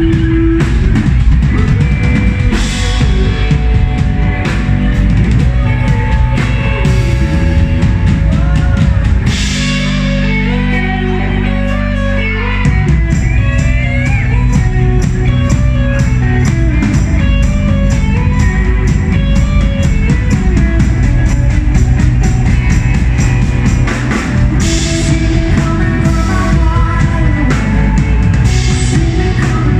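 Live rock band playing loud, with drum kit, electric guitar, bass and a lead vocal. About ten seconds in, the drums drop out for a few seconds under a held low chord, then the full band comes back in.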